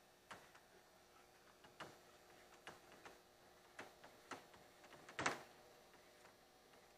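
Dry-erase marker tapping and scratching on a whiteboard as words are written: a few faint, irregular ticks over near silence, the clearest about five seconds in.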